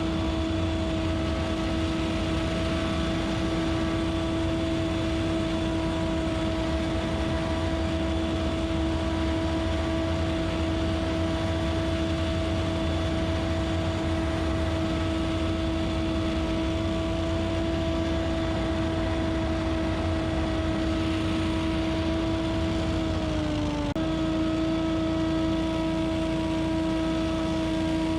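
Scag Windstorm stand-on leaf blower running steadily: a constant engine-and-fan tone over a broad rush of blown air. The pitch sags briefly near the end and then steadies again.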